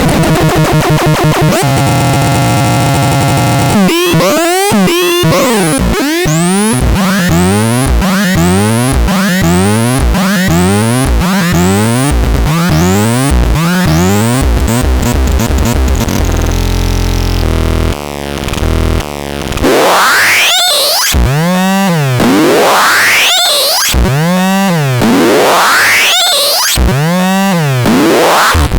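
Electronic synthesizer noise in a sound demo. It opens with a fast stepped, warbling pattern, then settles into pitch sweeps repeating about every 0.7 seconds. Around two-thirds of the way through it drops to a low buzz, then breaks into slower swooping sweeps about once a second or so.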